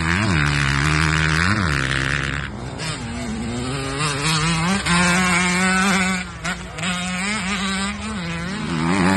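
Off-road racing engines revving as they ride past. The revs climb and drop sharply twice in the first two seconds, then run higher with a wavering, bouncing pitch.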